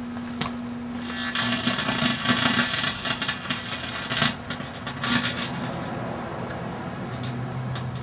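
Microwave oven running, its high-voltage transformer humming steadily. From about one to five seconds in, loud crackling and hissing as the lithium polymer battery inside flares up.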